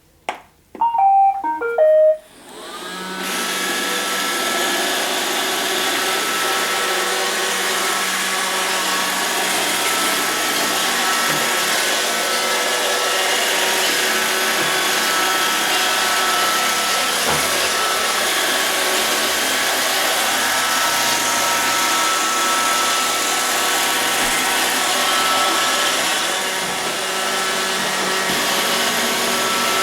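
Robot vacuum cleaner starting up: a click and a short run of electronic beeps stepping down in pitch, then its suction motor whines up to speed and runs steadily with the brushes turning.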